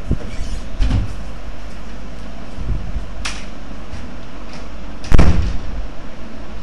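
Several knocks and clunks from the parts of a dismantled starter motor being handled, with a sharp click about three seconds in and a heavy thud, the loudest, about five seconds in, over a steady low hum.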